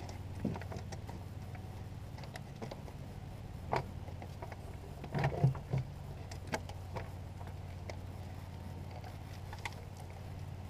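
Scattered knocks and clicks as the LS1's plastic intake manifold is shifted by hand on the V8 and catches against parts and wiring, with a cluster of louder knocks about five seconds in, over a steady low hum.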